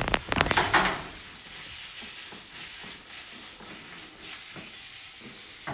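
Diced bacon, onion and garlic sizzling gently in a frying pan on low heat as the bacon fat renders. A quick cluster of sharp knocks comes in the first second as the pan is handled on the grate, then a steady soft sizzle.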